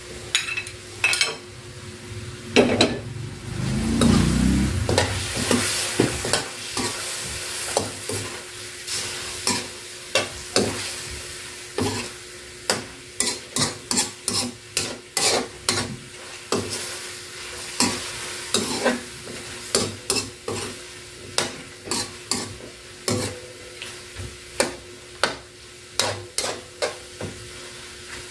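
Metal spatula scraping and clinking against an aluminium wok as chicken pieces and tomatoes are stirred over the flame, with a steady frying sizzle underneath. The strokes come about one to two a second, and a dull low rumble sounds about four seconds in.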